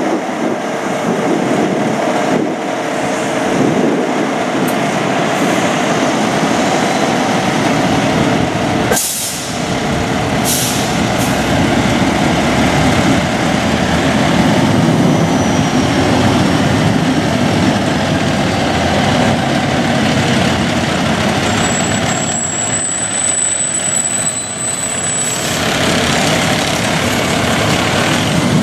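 Fire truck's diesel engine running loudly as the truck pulls out of the station bay, with two short air-brake hisses about nine and ten seconds in. A thin, high steady whistle sounds for a few seconds about two-thirds of the way through.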